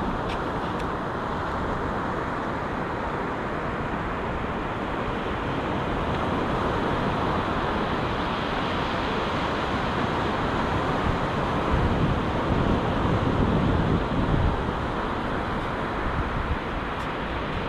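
Surf washing on a sandy beach, with wind buffeting the microphone. The wind rumbles harder in gusts from about twelve to fifteen seconds in.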